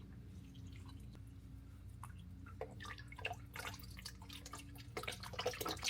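Warm engine oil dripping and splashing from a Jeep Wrangler's oil pan as the drain plug is worked loose. Irregular drips and small ticks grow busier from about halfway through, over a steady low hum.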